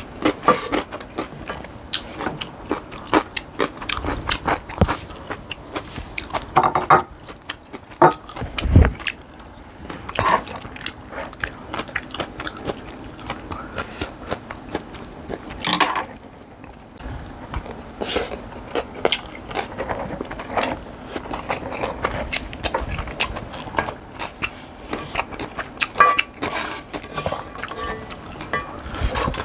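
A person chewing and biting mouthfuls of bibimbap with crisp vegetable side dishes: a continuous run of wet chewing and crunching, with sharper clicks now and then.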